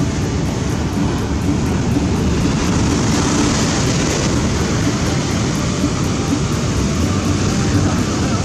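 Rough surf breaking and washing over a flat rock shore, a dense, steady noise with a heavy low rumble from wind on the microphone.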